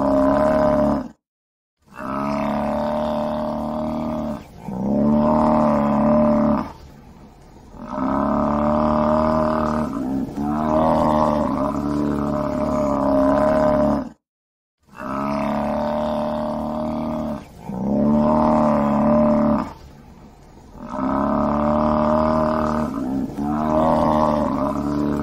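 Buffalo bellowing: a run of long, loud, pitched calls, each lasting a couple of seconds. The run breaks off in a brief silence about a second in and again about fourteen seconds in, then repeats.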